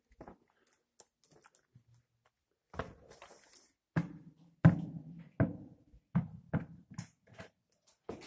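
Footsteps on a rocky cave floor: a few light scuffs and clicks, then a run of heavier steps about twice a second from about four seconds in.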